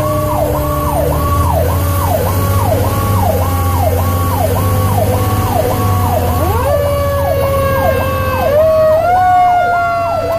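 Fire truck sirens heard from inside the cab of a 2002 Pierce Lance rescue truck running on an emergency call. An electronic wail sweeps up and down about twice a second. Alongside it a mechanical siren's tone sinks slowly, then winds back up in steps from about six seconds in, all over a steady low engine drone.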